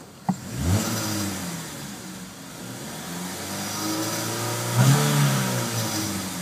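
A 2012 Chevrolet Malibu's 2.4-litre DOHC Ecotec four-cylinder revved in park, heard inside the cabin: after a short click, a quick rev about half a second in, then the engine held up and revved again, louder, peaking about five seconds in and easing near the end. The engine sounds a little buzzy on the high end.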